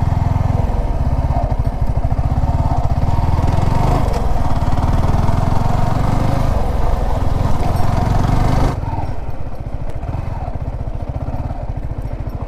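Yamaha R15 V4's single-cylinder engine running steadily as the motorcycle is ridden, with a fast, even low pulse under a hiss of rushing air. About nine seconds in the whole sound drops abruptly to a lower level.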